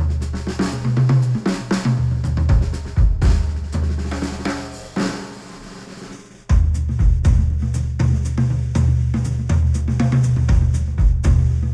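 Instrumental music with a drum kit beat (kick, snare, hi-hat and cymbals), played through studio headphones and picked up by microphones. About halfway through, the beat thins and fades, then the full beat comes back in suddenly.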